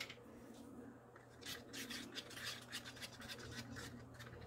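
A stir stick scraping quickly and irregularly against the inside of a cup as thick acrylic paint is mixed, faint, starting about a second and a half in.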